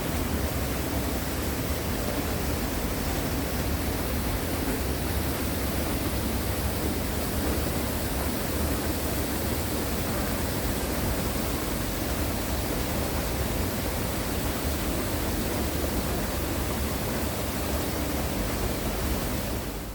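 Tawhai Falls, a 13-metre waterfall, pouring with a steady, dense rush of falling water.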